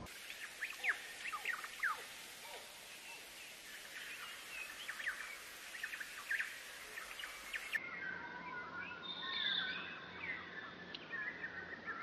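Small songbirds chirping: a quick run of short, high, downward-sliding chirps over a steady hiss. About eight seconds in, it cuts to a different recording of warbling, whistled song.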